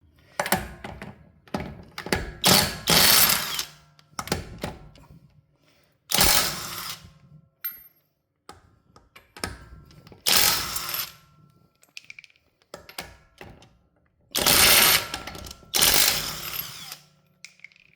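Power tool, most likely an impact wrench, hammering on a car's wheel nuts in about five bursts of a second or so each, with clicks and clanks between them, loosening the wheel.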